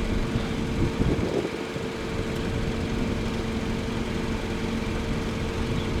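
Car engine running with a steady hum under low rumbling noise, with a couple of short knocks about a second in.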